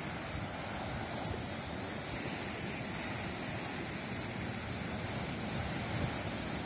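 Sea surf breaking and washing over rocks along a rocky shore, a steady rush of water.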